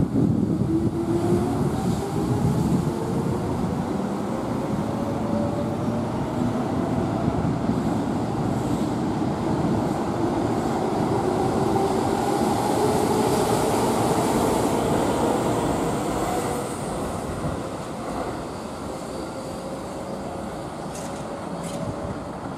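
Keihan electric train pulling away and accelerating. Its traction motors whine in several tones that climb slowly and steadily in pitch over the rumble of wheels on rail. The sound drops off in the last few seconds as the train moves away.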